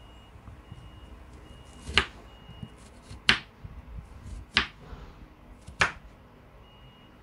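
Kitchen knife cutting raw potato into wedges, the blade knocking down onto a wooden chopping board four times, about once every 1.3 seconds.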